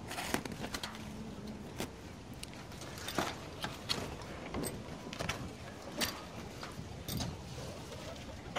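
Irregular knocks, clicks and rattles as a wood-framed gate panel is handled and pushed open.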